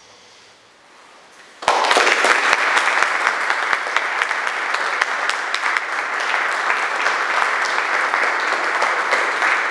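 Audience applause, breaking out suddenly about a second and a half in and continuing as dense, steady clapping.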